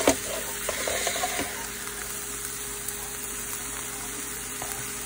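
Steady sizzling hiss from a hot George Foreman electric grill, with a sharp click near the start and a few light knocks in the first second and a half.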